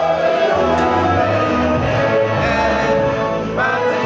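A group of men singing together over music, with a low bass line that comes in suddenly right at the start.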